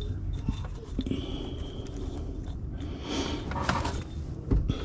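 Faint handling noises as a fuel filter adapter and its O-rings are handled by hand: a few light clicks and scrapes and a brief rustle, over a low steady hum.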